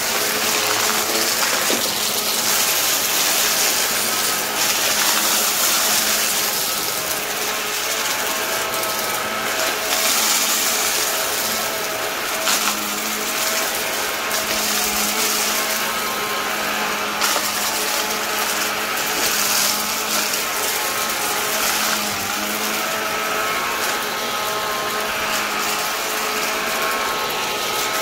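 Vacuum cleaner running steadily: a motor hum under a strong hiss of rushing air, with a few brief clicks.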